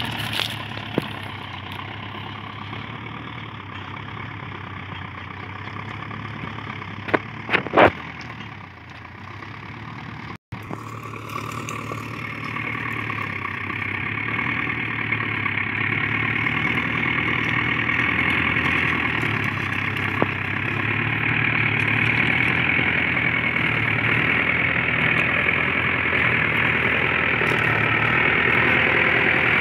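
Sonalika DI-750 tractor's diesel engine running steadily under load as it pulls a three-bottom plough, growing louder over the second half as the tractor comes closer. A few sharp clicks about seven to eight seconds in, and the sound cuts out for an instant about ten seconds in.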